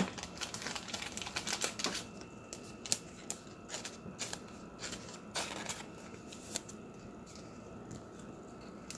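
Trading cards being handled on a table: a quick run of light clicks and rustles for the first two seconds, then scattered clicks and a brief rustle.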